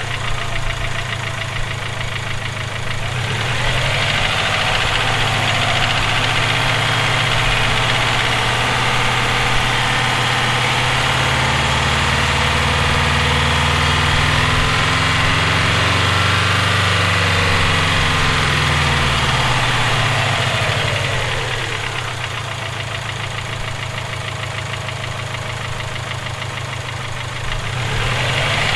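Subaru EJ257 2.5-litre turbocharged flat-four running, with a knock that the owner suspects may be rod knock. The engine gets louder about 3 seconds in and stays up until about 21 seconds, settles back to a quieter idle, then rises again near the end.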